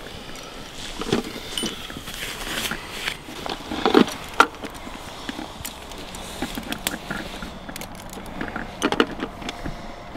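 Fabric rustling and small metal clinks as a wet carp weigh sling is handled and hooked onto hanging scales. There are a few sharper knocks about four seconds in and again near nine seconds.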